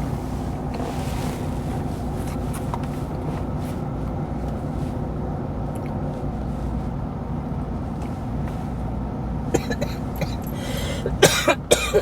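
Steady road and engine noise inside a moving car, then a person coughing several times near the end.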